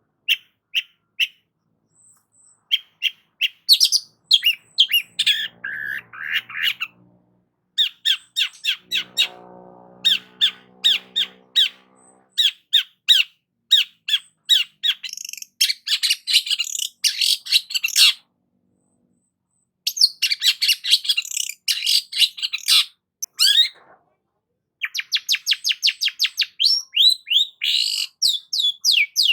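Long-tailed shrike (cendet) singing hard: bouts of rapid sharp chipping notes and harsh, scratchy chattering phrases, broken by short silences, ending in a fast run of repeated notes.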